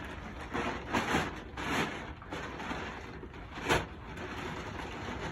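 Heavy 5-mil plastic tarp rustling and crinkling in irregular swishes as it is pulled and spread over pool equipment, with one sharp crack, the loudest sound, a bit past two-thirds of the way through.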